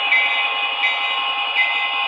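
Music with a steady beat, accented about every three-quarters of a second.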